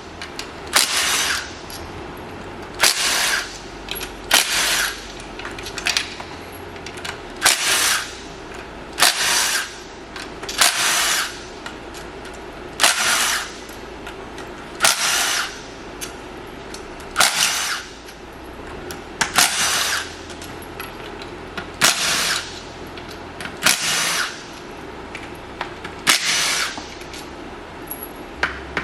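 A cordless power tool running in short bursts, one after another about every two seconds, spinning out the 12mm bolts that hold the transmission case halves together.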